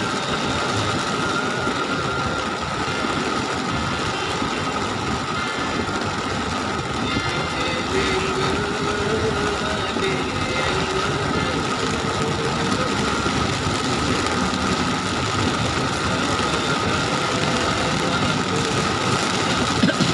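Heavy rain pelting a moving car's roof and windshield, heard from inside the cabin, mixed with the car's steady road noise. A faint steady high tone runs underneath.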